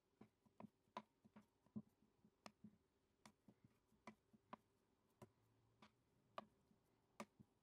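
Metal bench scraper chopping logs of dough into pieces, its blade striking the countertop in faint, sharp taps at an uneven pace of about two a second.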